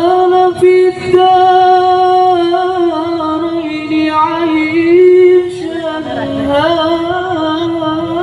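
A solo voice singing a sholawat melody, holding long, ornamented notes that slide from one pitch to the next.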